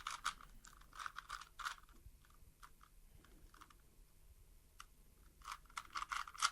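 Rubik's Cube being turned fast, its plastic layers clicking and clacking in quick flurries that thin out in the middle and pick up again near the end.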